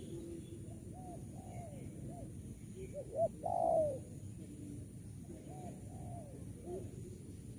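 Spotted dove cooing: a run of soft, arching coo notes, a louder, longer coo phrase about three and a half seconds in, then more soft coos.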